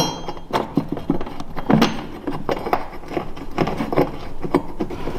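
Small bolt hardware clicking and scraping against a metal mounting bracket as a bolt with washers is started by hand: a string of irregular light clicks and taps.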